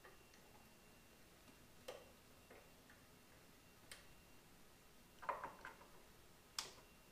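Near silence broken by scattered faint clicks and taps from a Tesla Model 3 hood gas strut being fitted, its socket ends pressed onto the ball studs, with a small cluster of clicks about five seconds in.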